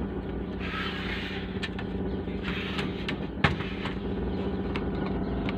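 Power amplifier with a newly fitted USB/MP3 player board giving out a steady buzzing hum through its speaker, with a few sharp clicks. The noise is the amplifier's fault: the repairer traces it to the USB board's grounding and cures it by earthing the board.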